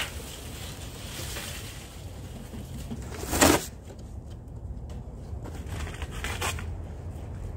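Dry leaves and cardboard rustling as leaves are shaken out of a cardboard box into a steel burn barrel, with one loud crunch of cardboard about three and a half seconds in.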